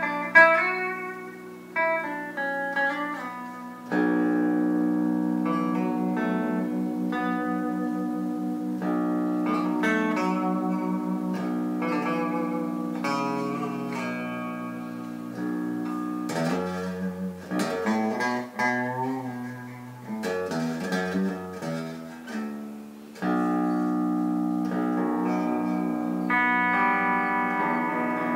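Chapman ML7 seven-string electric guitar played through an amp on a clean tone. It opens with picked single notes, moves to long ringing chords about four seconds in, then a passage of quicker notes, and returns to ringing chords near the end.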